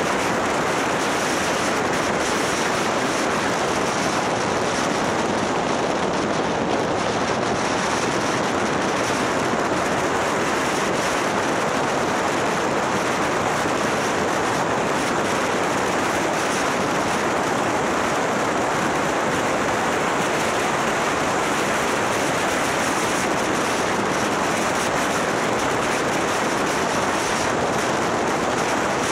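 Steady rush of wind on the microphone of a camera mounted on a moving motorcycle, with the ride's engine and road noise blended into it.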